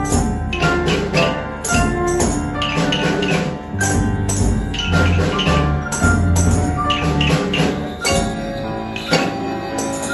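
Children's rhythm band: tambourines, wooden rhythm sticks, triangles and cymbals struck on a steady beat along with a piano.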